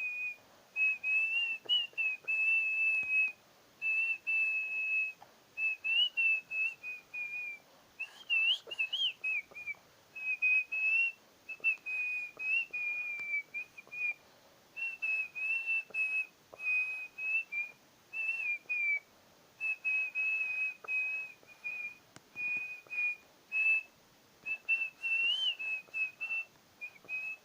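A person whistling a melody: a single clear, high tone stepping between notes in short phrases with brief breaks, with a quick warbling flourish about eight seconds in.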